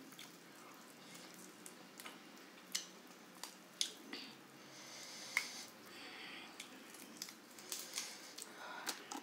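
Eating sounds: a piece of grilled chicken being pulled apart by hand, with soft wet squishes and irregular sharp crackles, along with close-up chewing.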